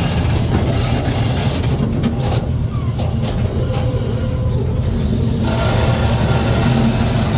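Engine of a caged safari park vehicle running steadily with a low hum.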